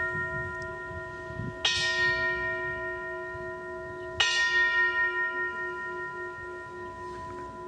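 Altar bell struck twice, about one and a half seconds in and again about four seconds in, each stroke ringing on with several steady tones that slowly fade over the ringing of a stroke just before. It is rung at the elevation of the host during the consecration.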